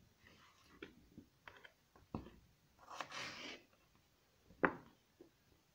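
Kitchen knife cutting papaya on a wooden cutting board: scattered light taps and knocks of the blade on the board, the sharpest about four and a half seconds in, with a short soft scraping noise around three seconds in.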